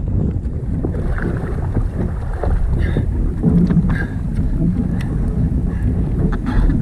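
Wind rushing over the microphone and sea water lapping against a jetski hull, a steady low rumble with a few small knocks and splashes.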